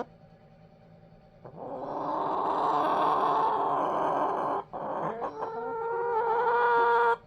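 Hens calling: a long, raspy drawn-out call starting about a second and a half in, then, after a short break, a second long call held on a steady pitch that cuts off suddenly near the end.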